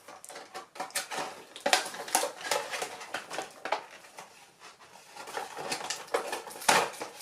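Plastic toy packaging being handled and opened by hand: irregular crinkling and clicking of plastic.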